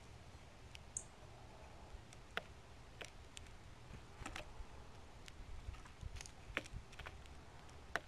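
Faint, irregular sharp clicks and taps, about a dozen, of small birds pecking and hopping among birdseed on a plastic feeder tray.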